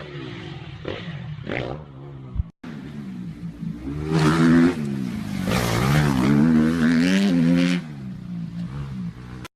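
Dirt bike engines revving, the pitch rising and falling over and over. It is loudest from about four to eight seconds in, and there is a brief gap at about two and a half seconds.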